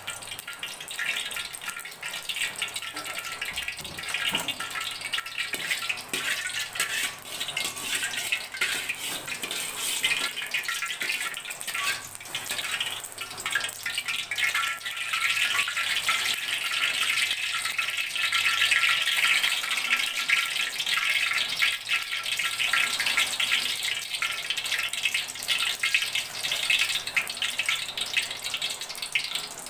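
Cooking oil heating in an aluminium wok on a gas stove, a dense crackling sizzle as it comes up to frying temperature, growing louder over the first half.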